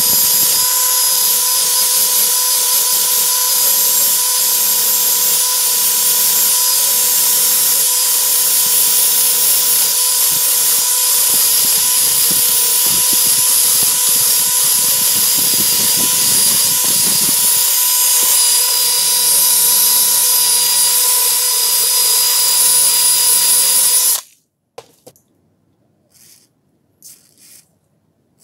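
A power drill spinning a wire wheel brush against the rusted steel of an old vernier caliper, scrubbing off the rust: a loud, steady whine with a scratchy hiss. It stops suddenly a few seconds before the end, followed by a few faint clicks of handling.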